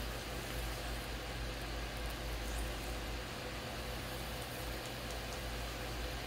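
Electric potter's wheel running with a steady hum and hiss.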